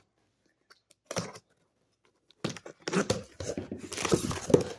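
Packing paper rustling and crinkling as a box of comics is unpacked. There is one brief rustle about a second in, then continuous crinkling from about halfway through.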